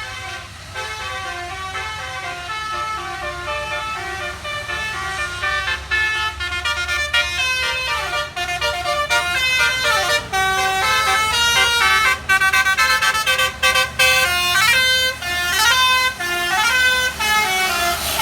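A bus's basuri telolet horn, a multi-trumpet air horn, playing a fast melody of stepped notes with sliding pitch glides in between. It grows louder over the stretch.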